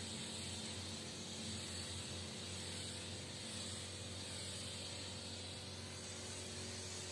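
Pressure-washer foam lance spraying snow foam onto a truck's curtain-side trailer: a steady hiss of spray with a low, even hum underneath.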